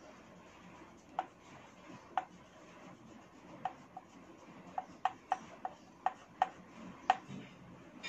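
Oil pastel stick being worked on drawing paper in short shading strokes. About a dozen sharp ticks come at irregular intervals as the stick strikes the paper, the loudest a little before the end.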